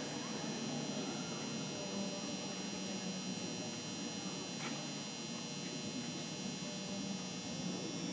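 Indoor arena ambience: a low, steady background of spectators in the stands with a constant electrical hum.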